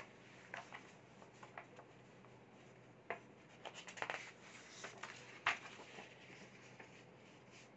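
Sheets of paper rustling faintly as a written page is lifted and turned over, with a few short crackles, the sharpest about three, four and five and a half seconds in.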